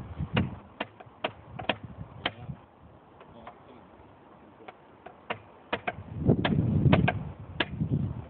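Sharp metallic clicks and taps of hand tools being worked against a steel rail, in irregular runs of two or three a second, with a short pause in the middle. A louder low rumble comes in about six seconds in.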